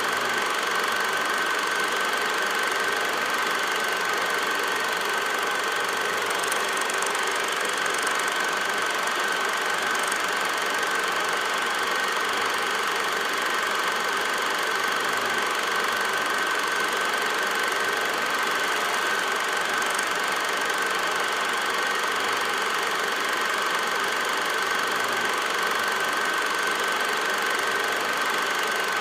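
Steady machine noise with a constant high whine, unchanging throughout.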